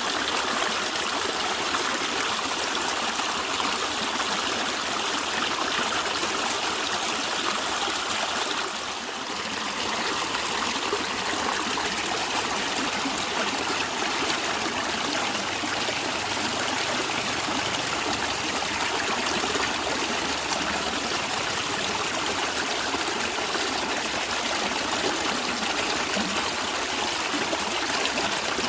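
Natural stream water gurgling and trickling in a steady rush, briefly dropping in level about nine seconds in.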